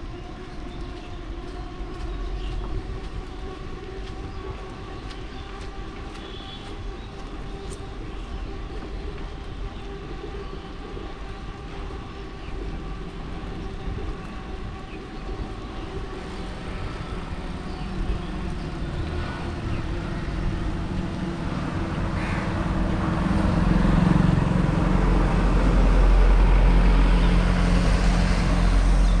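Riding noise from a bicycle rolling along a rain-wet street: tyre noise on the wet tarmac with a steady hum. It grows steadily louder over the second half.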